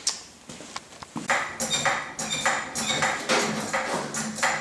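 Trolley jack being pumped by its long handle to lift a car's rear: a steady run of sharp metallic clinks, about three a second, starting about a second in.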